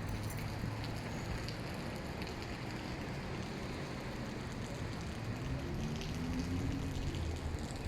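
Heavy rain falling steadily, a constant hiss of rain on surfaces, with a low hum underneath.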